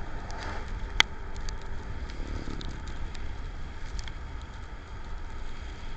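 Rain falling and pattering, with scattered drip ticks and one sharp click about a second in, over a low rumble of wind on the microphone.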